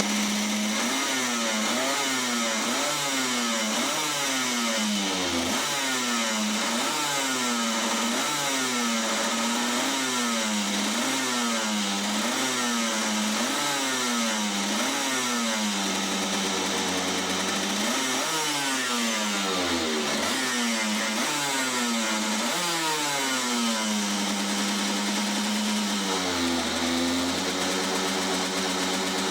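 A 100 cc reed-valve two-stroke kart engine being revved in repeated short blips, its pitch rising and falling about once a second, with steadier stretches around the middle and near the end where the note holds.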